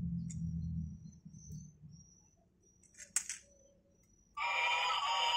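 A single click as a battery-powered toy steam locomotive is switched on. About four seconds in, the toy's built-in electronic music starts abruptly and loudly.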